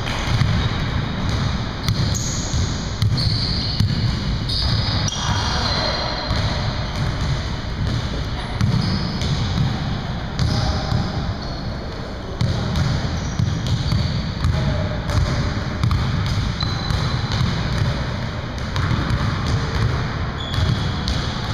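Basketball game in a gym: the ball bouncing on the hardwood floor, short high sneaker squeaks, and players' voices calling out, all echoing in the large hall.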